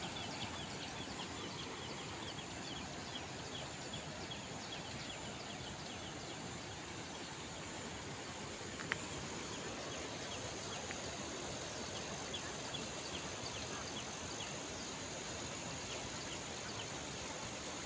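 Steady rush of a flowing stream, with insects droning high and scattered short chirps over it; one short click about nine seconds in.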